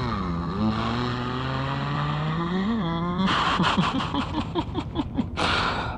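A terrified man's long, drawn-out moan that dips and then rises in pitch, breaking about halfway into quick, rapid sobbing gasps.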